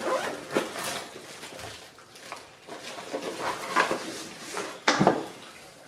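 Packaging being handled during an unboxing: irregular rustling and crinkling of plastic and cardboard, with a sharp knock about five seconds in.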